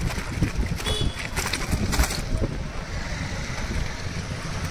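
Wind buffeting the microphone on a moving bicycle, with the rumble of road traffic behind it.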